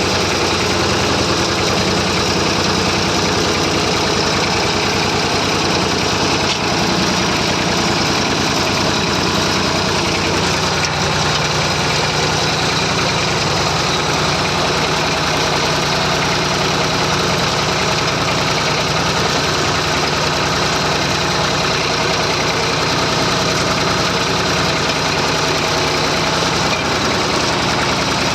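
Massey Ferguson 35 tractor engine running loud and steady at an even speed while it works the plough.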